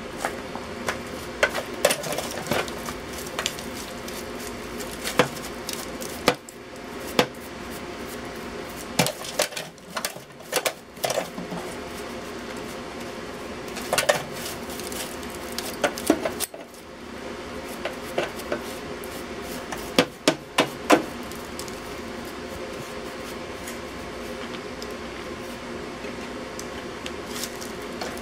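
Metal hand tools working the rusted steel top of an electrical box: irregular sharp clicks, taps and scrapes that come in clusters, over a steady background hum.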